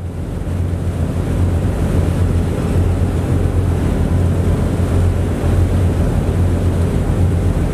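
Ferry's engine droning steadily, a low hum under rushing wind on the microphone and the wash of the sea. The sound swells up over the first second or two, then holds.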